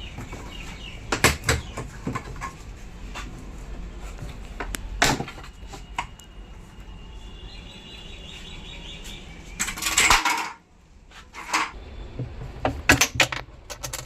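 Metal parts and tools clinking and knocking during work on a top-load washing machine's gearbox: scattered sharp knocks, a dense rattling burst about ten seconds in that stops abruptly, and a quick run of clinks near the end.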